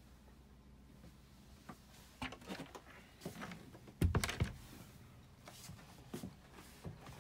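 A wooden cabin door's metal push-button latch clicking as it is pressed. The loudest moment is a quick cluster of knocks about four seconds in, with lighter scattered clicks before and after it.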